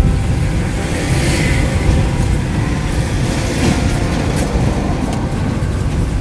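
Car on the move: a steady low rumble of engine and road noise, with a brief swell of hiss about a second in.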